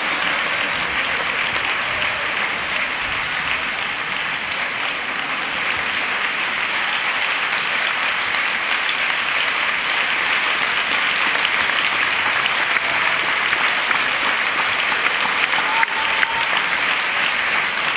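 Large theatre audience applauding, a dense, even clapping that holds throughout and swells a little in the second half.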